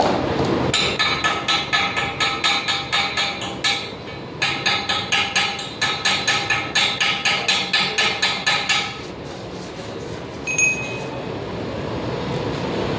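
A hammer strikes steel rapidly, about four to five blows a second, and each blow rings. There are two runs of blows with a short pause about four seconds in. A single metallic clink follows near the end, over steady background noise.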